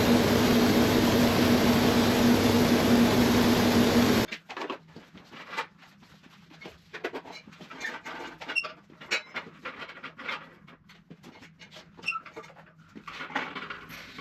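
A loud, steady rush of air with a low hum cuts off suddenly about four seconds in. After that come scattered light clicks and knocks of small objects being handled.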